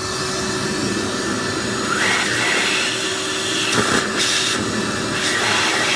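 Vacuum cleaner running steadily, sucking up oily grime around the empty fuel pump opening in an engine's valley. Its sound shifts briefly a couple of times as the nozzle picks up debris.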